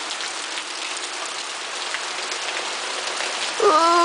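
Heavy rain falling steadily, with scattered sharp taps of drops striking surfaces. A woman's voice starts just before the end.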